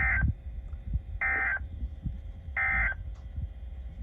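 Three short bursts of Emergency Alert System SAME data tones, the end-of-message code that closes the alert. Each burst lasts under half a second, about 1.3 seconds apart, over a low rumble.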